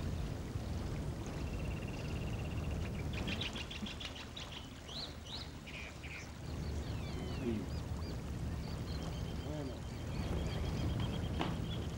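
Wild birds calling, ducks among them: trills, chirps and whistles, with a few lower falling calls, over a low steady rumble.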